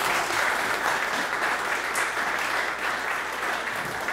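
Audience applauding, a steady crowd of many hands clapping.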